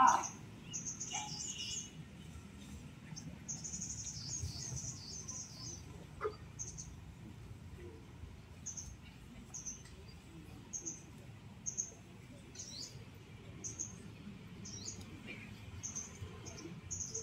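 A small bird chirping: short, high chirps repeated every second or so, with a few brief runs of quicker chirps, over a low steady background noise.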